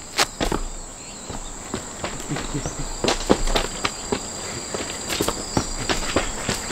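Footsteps crunching on the gravel ballast of a railway track bed, irregular steps with a louder thud just after the start as he lands from the platform. A steady high-pitched insect drone runs underneath.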